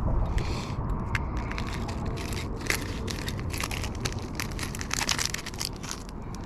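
Crinkling and clicking handling noise as small fishing tackle (hooks and steel leaders, likely in their packaging) is handled, over a steady low background noise.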